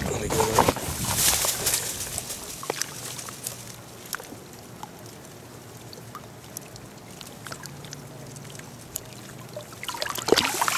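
Shallow lake water sloshing and trickling around a hand holding a caught bass in the water to release it, with small splashes. The splashing is busier at the start and again near the end.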